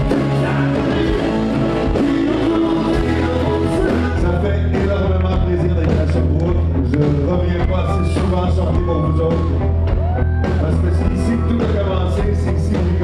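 Live pop-rock band playing, with a male lead vocalist singing over a steady low bass line.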